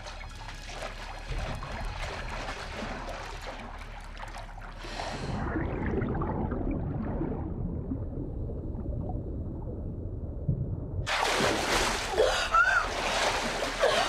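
Water sloshing, then a muffled low underwater rumble, then about eleven seconds in a sudden burst of loud splashing as two people break the surface.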